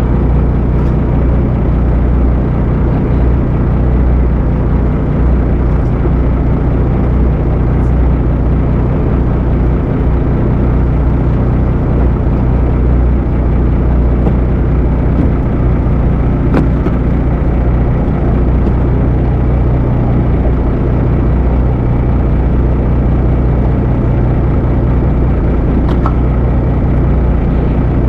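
Boat engine running steadily at constant speed, a loud even low drone that does not change in pitch, with a faint click or two.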